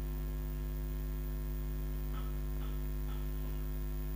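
Steady electrical mains hum in the recording, a low drone with a ladder of overtones. A few faint, brief soft sounds come through it around the middle.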